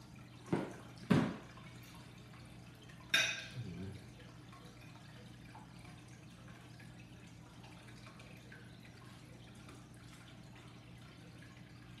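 Tableware and phone handled at a dinner table: two dull knocks about half a second apart, then a short clatter about three seconds in, over a steady low hum.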